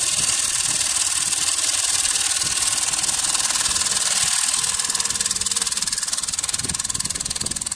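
Automatic wood lathe turning a wooden bowl blank, its fixed cutting tool shaving the spinning face: a steady hissing cut with a strong high-pitched edge, easing off a little near the end.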